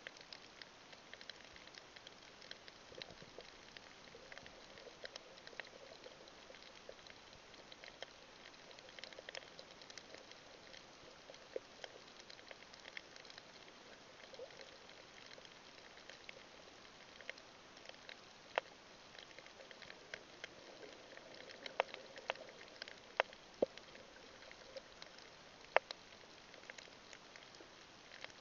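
Underwater coral-reef crackle: many faint, scattered sharp snaps over a light hiss, the crackling of snapping shrimp, with a handful of louder snaps in the second half.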